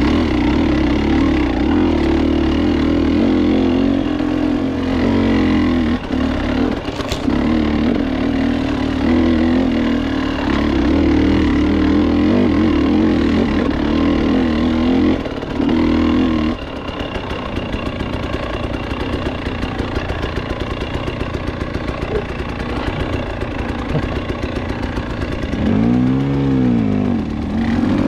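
KTM 300 XC's two-stroke single-cylinder engine running under load while the dirt bike is ridden along a single-track trail, holding steady mid revs for the first half. About halfway through it drops to low revs with a quick, even pulsing, and near the end the engine note rises and falls once as the rider revs.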